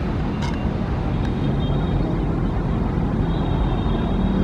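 Steady low rumble of a distant Boeing 777-300ER on the runway after landing, blended with city traffic noise, with a faint click about half a second in.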